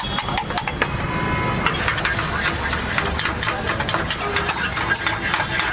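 Rapid metal clinks and scrapes of a spoon against steel bowls and pans at a street-food stall, over a steady low rumble of traffic engines.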